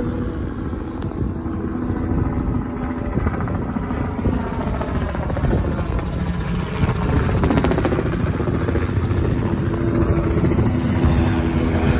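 Police helicopter circling overhead: a steady rotor drone with rapid blade chop, growing a little louder in the second half.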